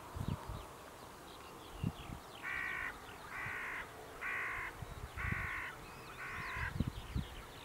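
A large bird gives five evenly spaced calls about a second apart, each about half a second long, with faint chirps of small songbirds behind.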